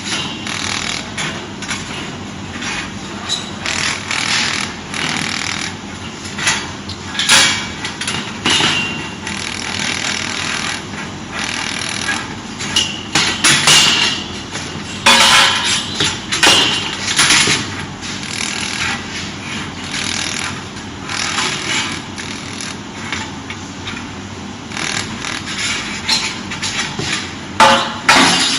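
Welding machine at work: a steady noise with many irregular sharp clicks and pops.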